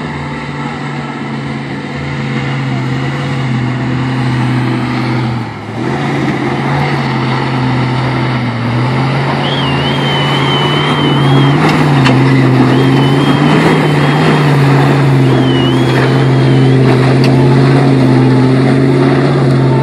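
Ford Bronco engine running under load at fairly steady revs as the truck climbs a rocky slope, growing louder toward the end.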